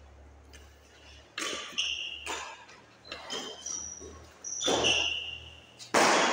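Badminton rally: a series of sharp racket hits on the shuttlecock, irregularly spaced and echoing in a large hall, the loudest near the end, with short high squeaks of shoes on the court floor between them.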